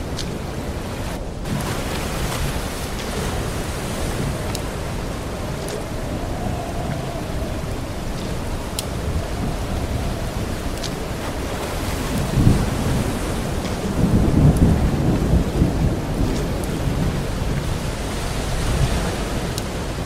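Stormy water ambience: a steady hiss with scattered faint ticks, and deep rumbles about twelve seconds in and again from about fourteen to sixteen seconds.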